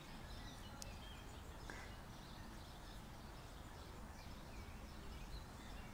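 Faint outdoor ambience: distant birds chirping over a low, steady background rumble.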